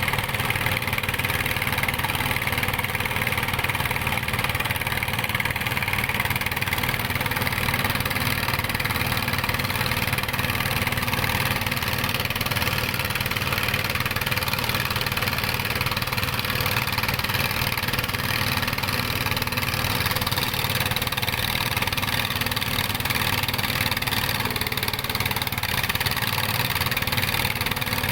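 Dongfeng ("dompeng") single-cylinder diesel engine running steadily at an even speed.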